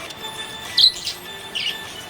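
Budgerigar chirping: a sharp, loud chirp about a second in, then a softer one.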